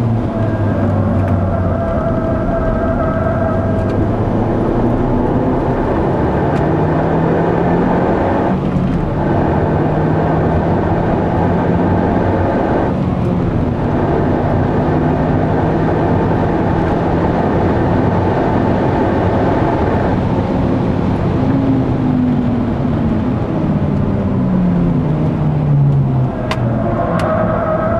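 Mazda 3 MPS's turbocharged 2.3-litre four-cylinder engine heard from inside the cabin under hard track driving. The engine note climbs, breaks off briefly twice for gear changes about 9 and 13 seconds in, and runs steadily. Its pitch then falls over several seconds as the car slows for a bend.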